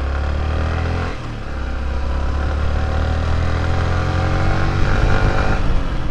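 Yamaha R15 V3's single-cylinder engine heard from the rider's seat while riding, dipping briefly about a second in and then climbing steadily in pitch as the bike accelerates, over a low rumble of wind on the microphone.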